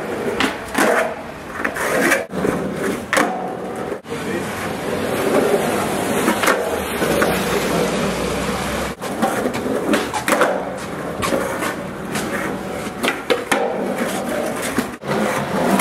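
Skateboard wheels rolling on pavement, with repeated sharp clacks of the board hitting the ground.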